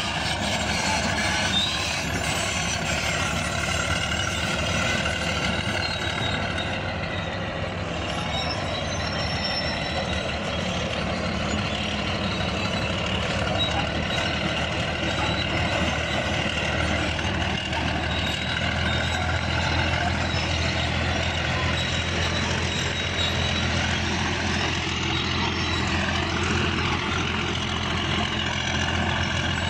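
Bulldozer's diesel engine running steadily at work, its pitch rising and falling a little a few times.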